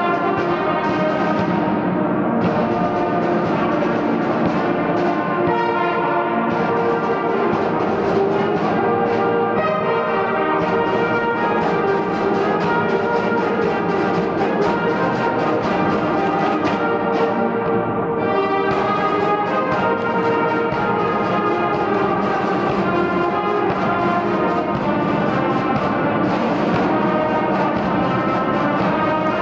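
A brass and reed marching band playing continuously, with brass and woodwinds over regular drum beats.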